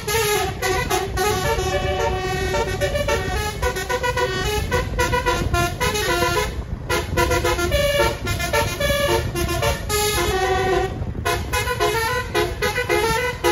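Basuri 'telolet' bus horn, a multi-tone musical horn, playing a fast melody of short stepped notes over a steady low rumble, breaking off briefly twice.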